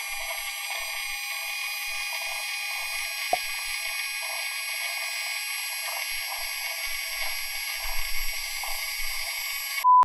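Steady electronic hiss like radio static, with faint fixed high tones running through it, cut off by a short beep at the very end.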